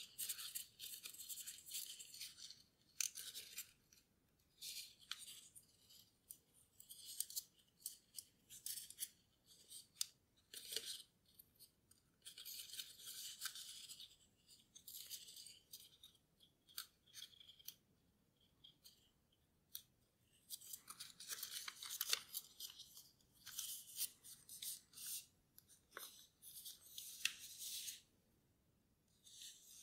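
Sheet of paper being folded and creased by hand: rustling and crinkling in irregular bursts with short pauses, dotted with sharp little clicks as the creases are pressed.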